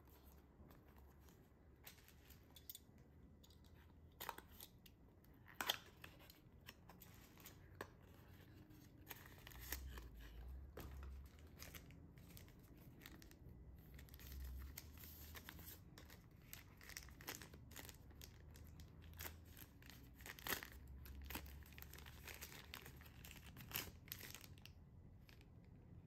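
Packaging being handled by hand: a small paper box opened and a filter unwrapped from its plastic bag, giving crinkling and rustling with many sharp clicks and taps. The louder clicks come a few seconds in, and again about three quarters of the way through.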